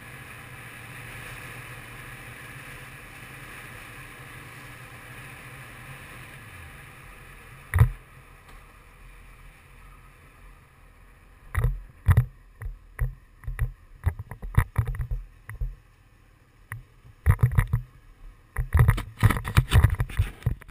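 Honda CBR600 inline-four running at low speed, heard muffled through a helmet-mounted action camera's case, with steady wind noise. About eight seconds in there is one sharp thump, and from about twelve seconds on a string of irregular knocks and bumps.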